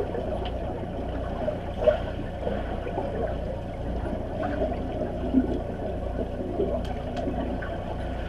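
Muffled underwater pool noise picked up by a camera on the pool bottom: the churning and sloshing of swimmers moving through the water, with a few short sharp knocks, the loudest about two seconds in and another about five seconds in.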